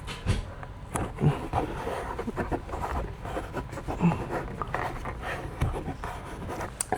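Irregular rustling, light taps and scrapes of a vinyl door-skin sheet being handled and positioned against a plastic door panel.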